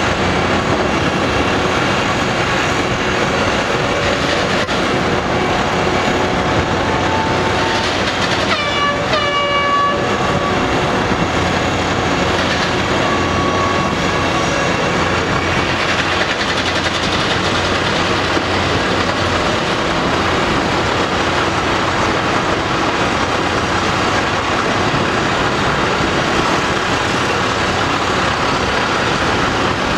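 Steady, loud din of a heavy tracked excavator's diesel engine and hydraulics working in a rock excavation. About nine seconds in, a horn sounds for about a second and a half, bending up in pitch as it starts and then holding steady.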